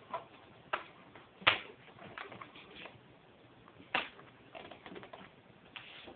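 Parts of a scratch-built RC model plane being handled and pressed closed: a few sharp clicks and knocks, the loudest about a second and a half in and another near four seconds, with softer tapping and rustling between.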